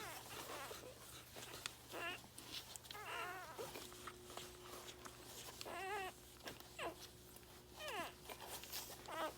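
Newborn Soft Coated Irish Wheaten Terrier puppies squeaking and whimpering while nursing: about seven short, high-pitched cries that waver up and down, with faint clicks between them.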